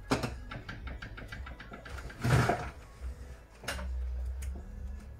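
Handling noises from work on a partly dismantled laser printer: a knock as a screwdriver is set down on the wooden desk, a quick run of clicks, a louder scraping rustle a little past two seconds in, and another click just before four seconds.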